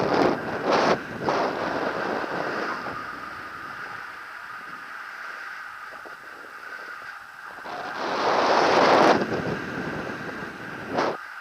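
Airflow of a paraglider in flight rushing over the microphone: loud at first, easing off in the middle, gusting up again about eight seconds in, with one short gust near the end.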